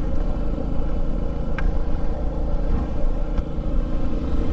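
Motorcycle engine running steadily as the bike cruises along the road, with a constant low rumble of engine and road noise.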